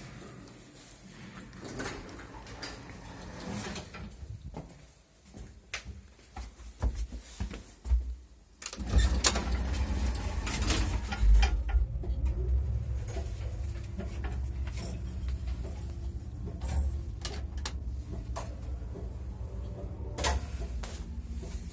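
1979 MLZ passenger elevator: a series of clicks and door clatter, then about nine seconds in the car starts moving with a steady low rumble that carries on with occasional knocks.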